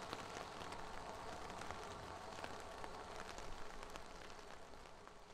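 Steady rain falling, many small drop ticks over an even hiss, fading out near the end.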